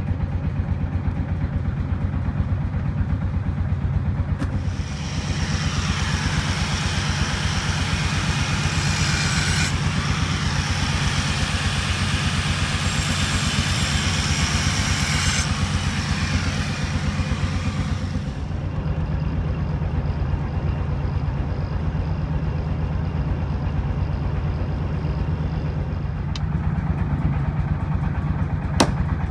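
A steady low mechanical drone runs underneath throughout. About five seconds in, an angle grinder with a thin cut-off disc starts cutting through the steel of a tractor disc with a loud, high grinding noise, which stops about eighteen seconds in. A single sharp metallic strike comes near the end.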